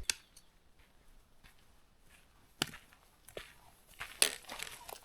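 Footsteps on a rocky, uneven trail: scattered crunches and scuffs, a few sharper ones about two and a half and four seconds in.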